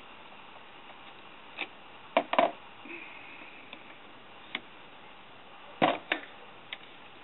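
A handful of sharp clicks and knocks at irregular intervals, two of them in close pairs, from a Henry survival rifle being handled.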